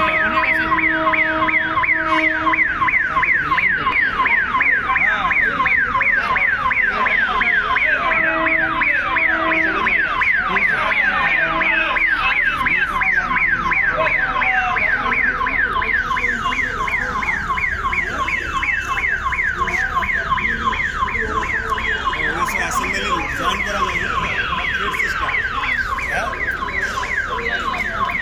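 Electronic warning siren wailing continuously in fast rising sweeps that repeat several times a second. A lower steady tone sounds briefly twice in the first ten seconds.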